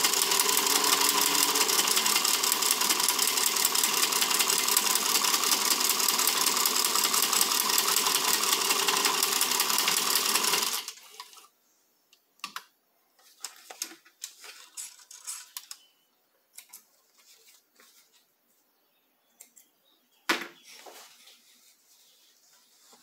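Singer 15C straight-stitch sewing machine running at speed, stitching through synthetic leather, for about eleven seconds, then stopping abruptly. Afterwards faint clicks and rustles as the work is handled, with one sharper click about twenty seconds in.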